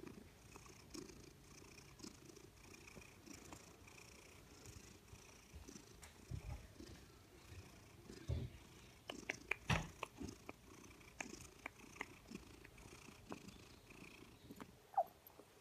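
Maine Coon–Manx mix cat purring steadily, with scattered small clicks and knocks clustered about two-thirds of the way through and a brief high squeak near the end.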